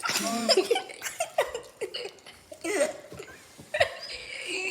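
Several young people laughing and giggling, with a burst at the start and another near the end.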